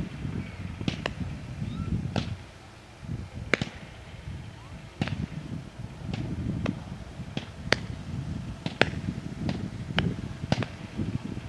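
Aerial fireworks going off: more than a dozen sharp pops and cracks at irregular intervals, over a low rumbling noise.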